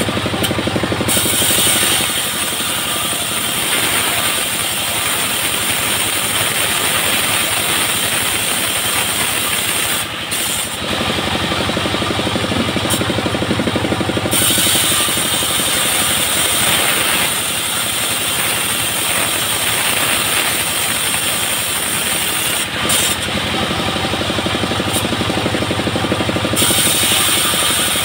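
Homemade band sawmill running steadily, its engine driving the band blade as it rips lengthwise through a coconut palm log. A high hiss from the cut comes and goes, and the sound dips briefly twice.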